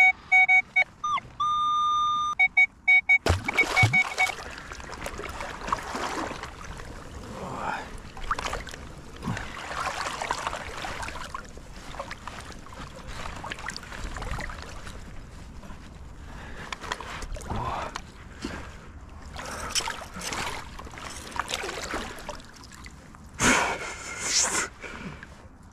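A handheld metal detector beeps in short steady tones for about three seconds, stepping in pitch, as it signals a metal target. Then comes water sloshing and splashing as hands dig through it, with a louder splash near the end as a large metal ring is pulled up out of the water, dripping.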